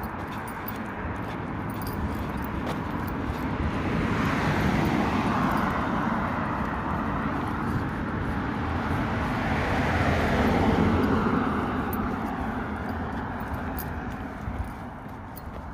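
Road traffic passing: a rushing tyre-and-engine noise that swells and fades twice, each time over several seconds.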